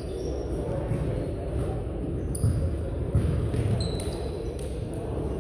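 Basketball game on a hardwood gym court: a ball bouncing with several dull thumps, short high squeaks from sneakers, and players' and spectators' voices over a steady hubbub.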